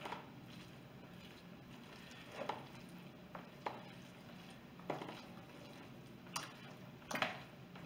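Potato salad being stirred with a spoon in a plastic mixing bowl: faint wet mixing, with about half a dozen short knocks of the spoon against the bowl at irregular intervals.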